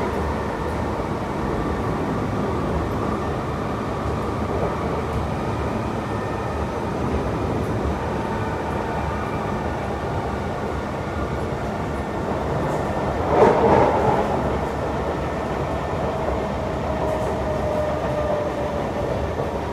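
Kawasaki C151 metro train heard from inside the car while running: a steady rumble of wheels on rail with a faint motor whine. About thirteen seconds in there is a brief loud rush of noise, and after it a slowly falling whine as the train slows for the next station.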